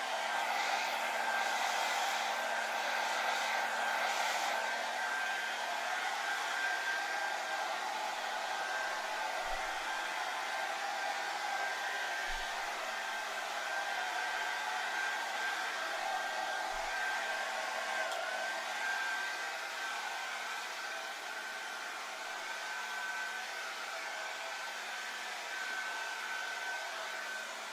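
Hairdryer running steadily: a rushing airflow with a steady high whine from the motor, easing a little in level about two-thirds of the way through.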